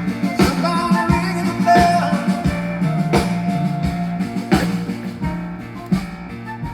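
Live rock band playing, with a drum kit keeping a steady beat under guitar and sustained instrument notes and a singing voice; the level eases off a little toward the end.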